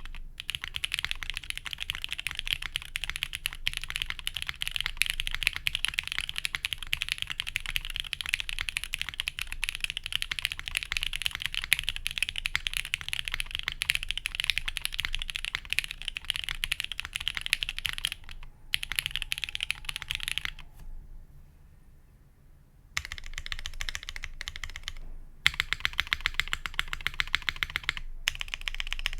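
Fast typing on a Forever65 mechanical keyboard: SP-Star Sacramento switches lubed with Superlube 41160, on a POM plate with no dampening, under GMK keycaps. A steady stream of keystrokes breaks off for about two seconds, about two-thirds of the way through, then starts again.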